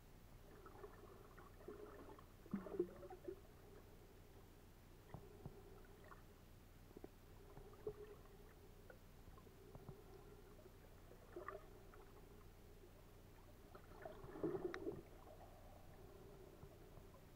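Faint, muffled underwater sound picked up by a submerged camera: a steady low hum with scattered small clicks, and a few louder gurgling swishes of water about three seconds in and again near the end.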